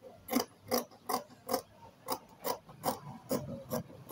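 Large dressmaker's shears cutting through Ankara print fabric, a steady run of crisp snips about two to three a second.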